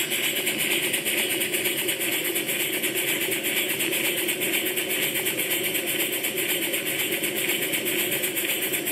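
Model Southworth steam boiler feed pump running fast on steam, a steady rapid clatter. Its speed is the sign that it is actually pumping water into the boiler.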